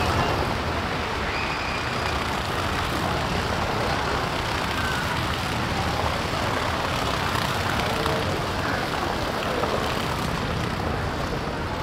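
Steady street traffic noise: an electric tram rolling past together with a van and cars driving by.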